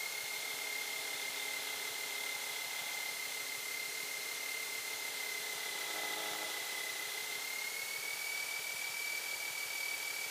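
Aviat Husky's engine and propeller running during a low approach, heard from inside the cockpit as a steady high whine over a hiss. The whine's pitch steps up slightly about eight seconds in.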